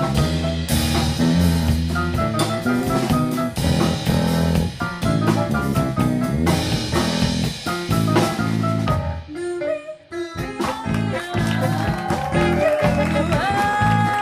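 Live Brazilian jazz band playing a chacarera-based tune: piano, horns, bass and drum kit together at full strength. About two-thirds of the way through, the band drops out almost completely for a moment, then comes back in, with a long held note near the end.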